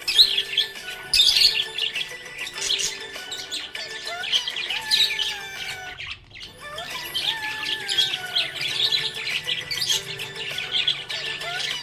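Budgerigars chirping and chattering in a dense, continuous stream of rapid high twitters, with some drawn-out sliding whistles, easing off briefly a little past the middle.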